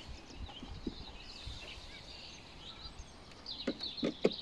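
Small birds chirping in the background, with a quick cluster of light knocks near the end as hands handle the underside of a cordless lawn mower's plastic deck and blade.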